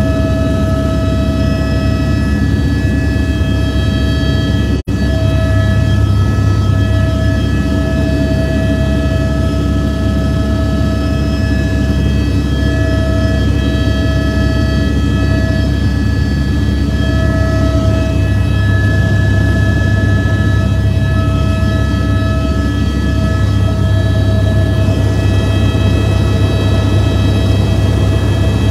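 Helicopter in flight heard from inside the cabin: a loud, steady drone of engine and rotor with several constant whining tones on top. The sound drops out for an instant about five seconds in.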